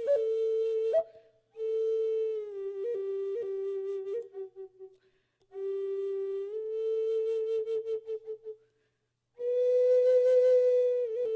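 Native American flute playing a slow melody in long, low held notes, with quick ornamental flips between notes. The phrases break off into short silences about a second in, around the middle and near the end.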